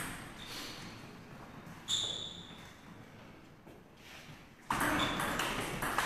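Table tennis ball being hit and bouncing: a sharp ping at the start and another about two seconds in, then a busier stretch from about five seconds in as a rally starts, with another ping over a steady rustle.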